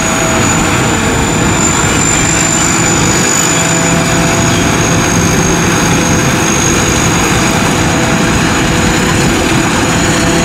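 Sitcharoen Kanchang rice combine harvester running while cutting rice: a loud, steady engine and machinery drone with a steady high-pitched whine over it.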